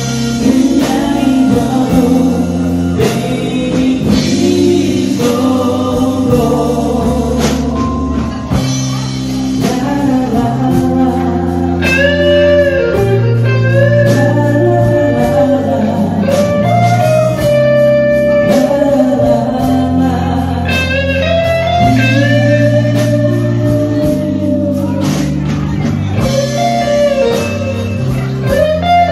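Live band playing: a male singer sings a slow melody over electric guitars, bass guitar and drums.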